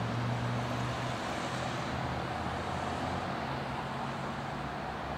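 Road traffic: a vehicle engine running close by with a steady low hum that slowly fades, over a constant wash of traffic noise.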